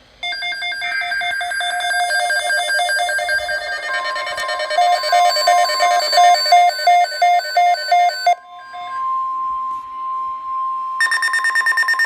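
Weather radio alert tones: a fast, pulsing electronic alarm beep with many overtones. About four seconds in, a steady single-pitch tone near 1050 Hz joins it, the NOAA Weather Radio warning alarm tone. The beeping stops about eight seconds in, leaving the steady tone alone until a new burst of rapid pulsing tones near the end.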